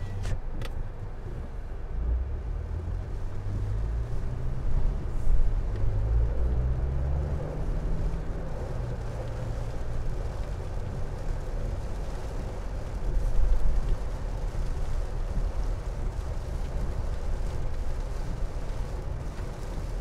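Inside a car: engine and tyre noise on a wet road as the car pulls away, the engine note rising over the first several seconds and then settling into a steady cruise. Two sharp clicks sound right at the start.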